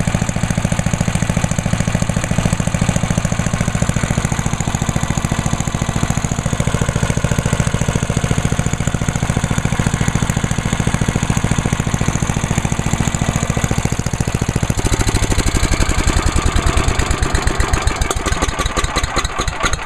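Tecumseh single-cylinder engine on a 1998 Yard Machine chipper/shredder running just after a one-pull cold start. It holds a steady speed, then about fifteen seconds in it slows to a lower, more uneven beat.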